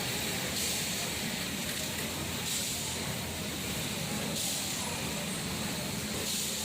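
Steady mechanical hum and hiss, with a brighter hissing swell about every two seconds.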